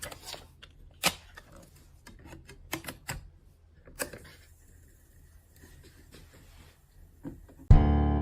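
Mechanical clicks and clacks from a 1999 Panasonic portable CD player being operated, with a faint steady whir between the later clicks. Loud keyboard music starts just before the end.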